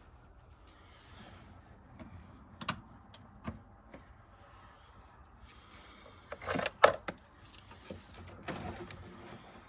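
Small plastic clicks and knocks of an automotive relay being pulled from and pressed into a fuse box: a few scattered taps, then a tight cluster of sharp clicks about seven seconds in, the loudest, followed by rustling.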